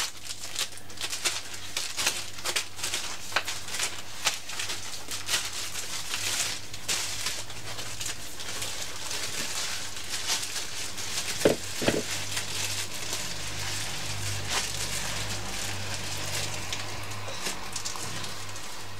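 Plastic bag crinkling and rustling in a run of small crackles as a ball of dough is worked into it and the bag is twisted tight around the dough to squeeze the air out.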